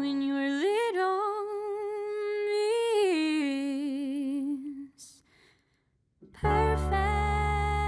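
A singer holds a long wordless note with vibrato over soft backing; the note rises about half a second in, then slides down and fades out about five seconds in. After a brief silence, the band music comes back in with a strong bass about six and a half seconds in.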